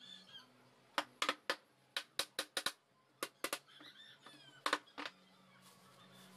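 Claw hammer striking a plywood speaker panel: about fifteen sharp knocks in quick, uneven groups, stopping about five seconds in.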